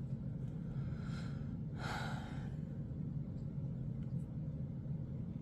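Steady low room hum, with two soft breaths from the woman about one and two seconds in, the second a little louder, like a sigh.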